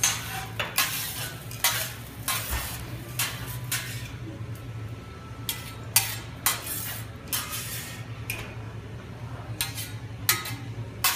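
Steel spatulas scraping and clacking on a teppanyaki griddle in quick, irregular strokes, about two a second, as the cook clears leftover rice off the hot plate. A steady low hum runs underneath.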